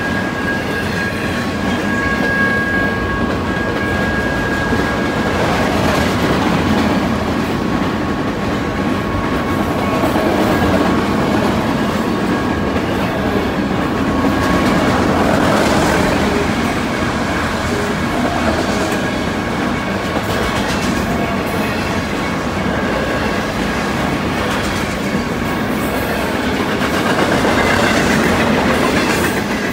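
Freight train of autorack cars rolling past close by: a steady rumble of steel wheels on the rails. A steady high squeal is strongest in the first five seconds and carries on faintly after.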